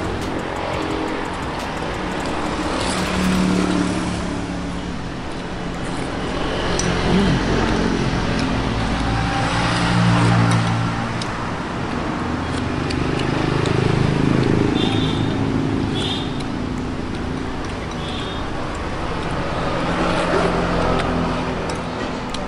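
Road traffic going by: engines swell and fade every few seconds as vehicles pass, with faint clinks of a spoon and fork against a bowl.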